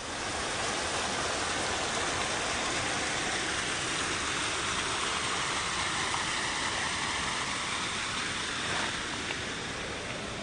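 A steady rushing noise with no clear pitch, strongest in the upper range and even throughout.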